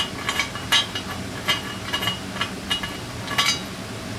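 Light metallic clicks and clinks, about a dozen at uneven intervals, from a hand tool chasing the boogered-up threads of a carburetor mounting bolt hole in an aluminum Offenhauser intake manifold.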